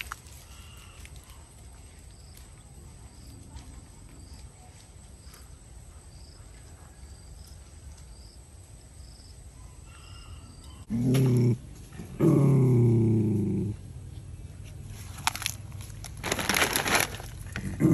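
A dog growling twice in low, drawn-out rumbles, then the crinkling of a plastic food packet near the end.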